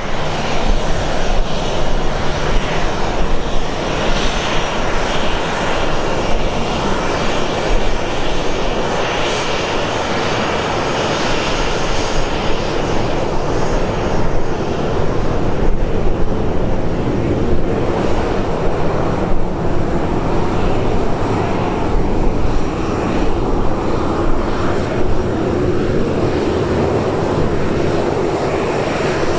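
Delta Boeing 737's twin jet engines running steadily as it taxis past close by.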